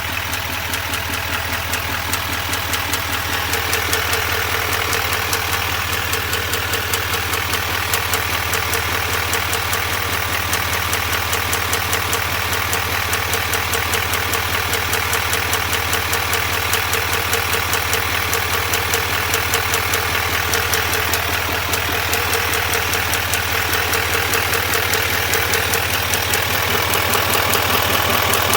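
Duramax L5P 6.6-litre V8 turbodiesel idling with a fast, even ticking over the engine sound.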